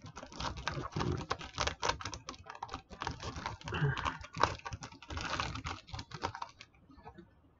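Typing on a computer keyboard: a fast, uneven run of key clicks that stops about a second before the end.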